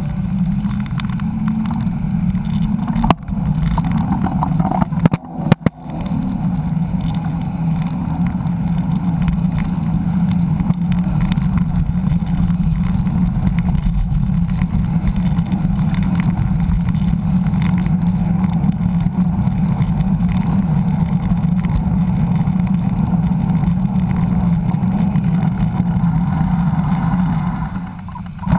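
Steady low rumble of wind and road noise on a bike-mounted action camera while riding along a street, with a few sharp knocks about three and five seconds in. The rumble drops near the end.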